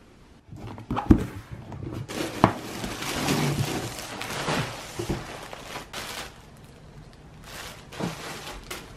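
A parcel being unboxed on a table: a few sharp knocks of the box and its contents, with stretches of rustling packaging and the crinkle of a clear plastic garment bag.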